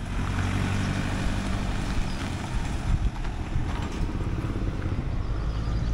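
Motorbike engine running steadily while riding, with road and rushing air noise over it.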